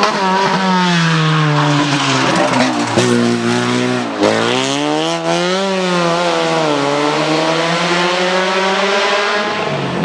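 Opel hatchback rally car's petrol engine at full throttle on a tarmac stage, its note climbing and falling as it changes gear. The revs drop sharply about four seconds in, then climb again as the car accelerates out of the bend.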